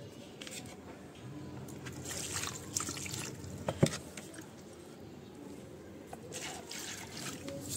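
Water trickling and dripping, with scattered rustling and clicks and one sharp knock about halfway through.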